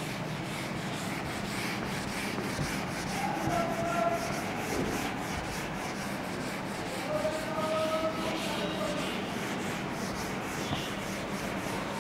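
Whiteboard eraser scrubbed back and forth across a whiteboard, a steady run of repeated wiping strokes.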